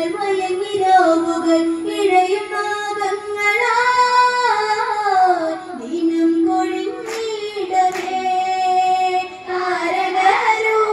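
A girl singing a Malayalam Onam kali folk song into a microphone, holding long notes and gliding between them. Two short sharp sounds about a second apart come near the middle.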